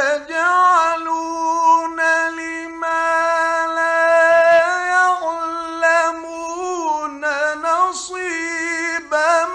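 Male Quran reciter chanting in the melodic mujawwad style: one long phrase beginning just before, with notes held on a single high pitch for several seconds, then ornamented turns and a brief dip in pitch near the end.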